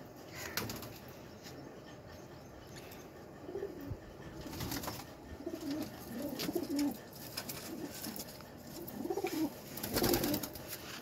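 Domestic pigeons cooing in a small loft, a low cooing repeated from about three and a half seconds in. Near the end a pigeon flaps its wings as it is grabbed by hand.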